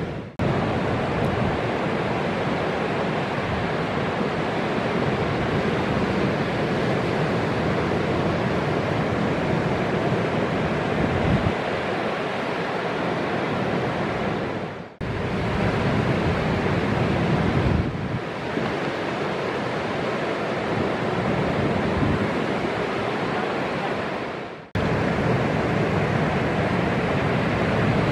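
Ocean surf: waves breaking and whitewater rushing in a steady wash of noise. It drops out briefly twice, at cuts between clips.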